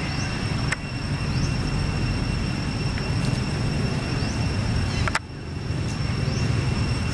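Steady low rumble of outdoor background noise, with a faint, steady high-pitched whine over it. Two sharp clicks come, about a second in and about five seconds in.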